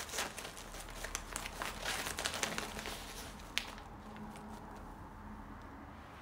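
Sego gele headwrap fabric rustling and crinkling in quick crackles as hands tuck and pat it into place at the back of the head. It stops with a last sharp crinkle about three and a half seconds in, leaving only a faint low hum.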